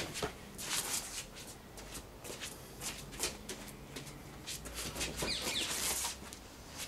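Shoes stepping and scuffing on patio paving slabs during a martial-arts drill, with quick whooshes of a short polypropylene bat swung through the air, at irregular moments throughout.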